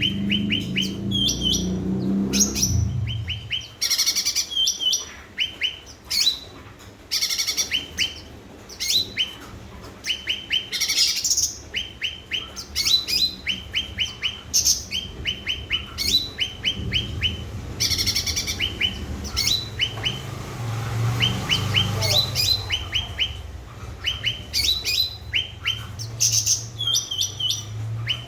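Cucak ranting singing vigorously in rapid, repeated phrases of short, high, downward-sliding notes, over a low background hum.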